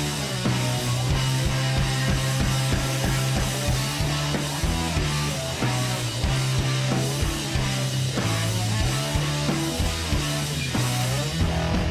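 Background rock music with a steady beat and bass line.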